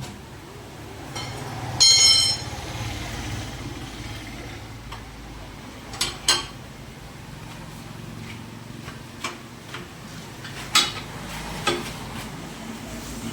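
Metal clanks and knocks from a tyre lever and tyre changer against the wheel rim as a tubeless tyre's bead is worked off. One loud ringing clang about two seconds in, then sharper knocks around six and eleven seconds, over a low steady machine hum.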